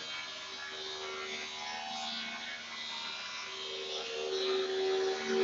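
Metal lathe running as it turns a large steel pipe, a steady buzzing hum with several held tones that get louder about four seconds in.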